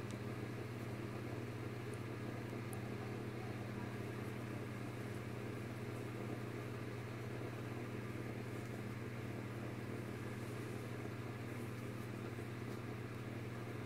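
Steady low machine hum with an even, unchanging drone and a few faint ticks.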